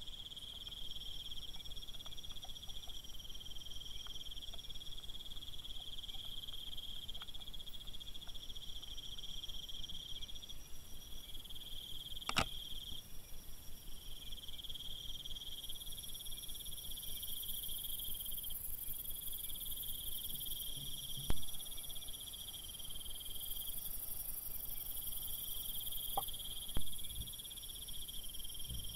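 Night insect chorus: crickets trilling steadily in several high-pitched layers. Three sharp clicks cut through it at intervals.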